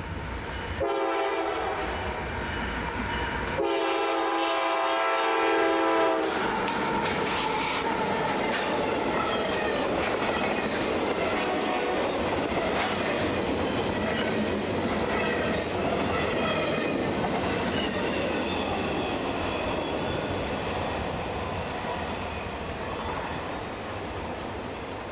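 CSX freight train locomotive sounding two long blasts of its chime horn, the first starting about a second in. The double-stack intermodal train then rolls by with a steady rumble and clatter of wheels over the rails, and a high wheel squeal joins in during the last several seconds.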